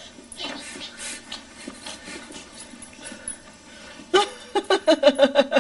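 Quiet breathy vocal sounds, then about four seconds in a burst of rapid, rhythmic laughter, short 'ha-ha' pulses about four or five a second.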